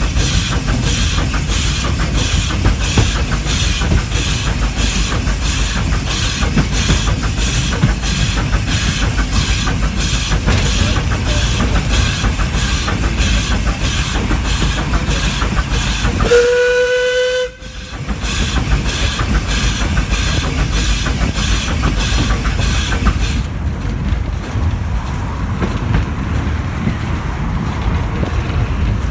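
Steam locomotive working uphill, with steady rhythmic exhaust beats over the rumble of its wheels on the rails. A little past halfway it gives a short whistle blast of about a second. Some seconds later the exhaust beats stop, and the engine rolls on with only the running rumble of wheels on track.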